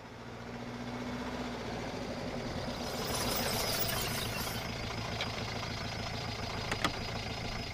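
Vehicle engine running steadily at a low rumble as a drama sound effect, fading in at the start. About three seconds in comes a short rush of hiss, and near the end a couple of sharp clicks.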